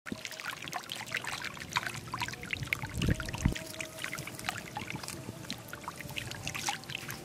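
Many catfish thrashing in shallow muddy water: a dense, continuous run of small splashes and slaps, with a couple of heavier splashes a little past three seconds in.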